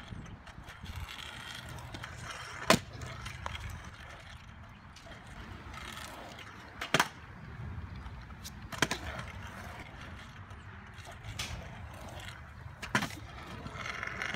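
Freestyle stunt scooter wheels rolling with a steady low rumble, broken by four sharp clacks of the scooter landing and hitting the ground.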